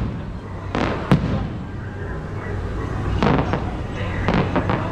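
Fireworks going off: a sharp bang about a second in, then clusters of crackling bursts around three seconds and again near the end, over a steady low rumble.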